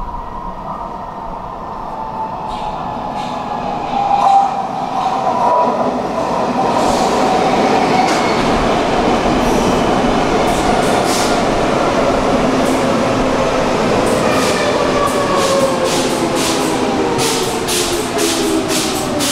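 Stockholm subway train pulling in: the sound grows louder over the first several seconds, and its motor whine slides steadily down in pitch as it slows. Sharp clicks come from the wheels and rails in the last few seconds.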